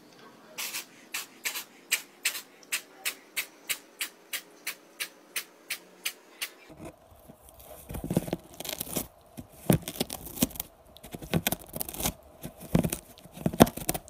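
A run of evenly spaced sharp clicks, about three a second, for the first six or so seconds. Then a cat gnawing at the ragged edge of a hole in a cardboard box, tearing and scraping the cardboard in irregular bursts.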